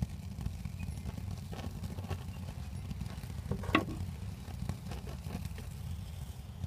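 Soda-can side-jet alcohol stove burning in a pan of ice water: a steady low rumble with scattered faint ticks and one sharper click a little before four seconds in.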